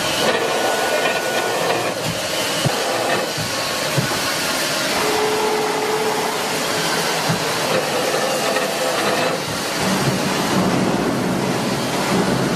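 LX-ZY-330 automatic circular-saw pipe cutting machine running: a loud steady machine noise with hiss, broken by several sharp knocks in the first few seconds.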